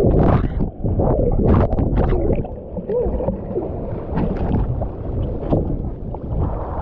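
Ocean water splashing and sloshing close to the microphone as someone goes into the surf, over a heavy low rumble. The splashes are thickest in the first couple of seconds, then settle into a steadier wash.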